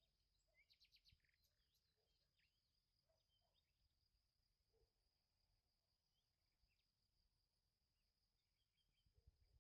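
Very faint countryside ambience: a steady high insect drone with scattered bird chirps, and a quick run of ticking chirps about a second in.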